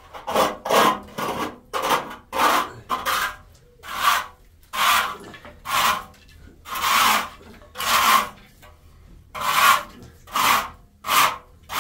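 Repeated rasping, scraping strokes, about one or two a second in uneven runs with short pauses.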